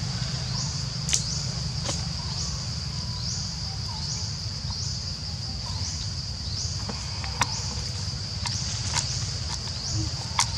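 Forest insects droning steadily at a high pitch, with a short rising chirp repeating about every half second, over a low rumble. A few sharp clicks cut in now and then.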